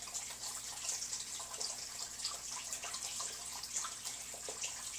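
Peahens pecking dog-food kibble from a stainless steel bowl: irregular quick clicks and taps of beaks on food and metal, over a steady high hiss.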